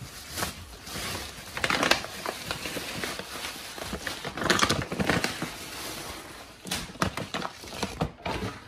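Thin plastic shopping bag and a glossy plastic rice bag crinkling and rustling as they are handled, in irregular bursts.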